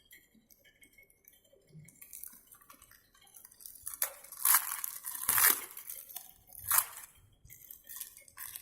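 A delivery parcel's packaging being handled and opened: faint small clicks and rustles, then from about halfway three loud rustling, tearing bursts of the wrapping.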